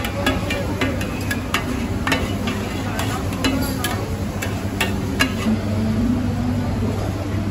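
Street-food market ambience: scattered clinks and knocks, as of cooking utensils, over a steady low hum.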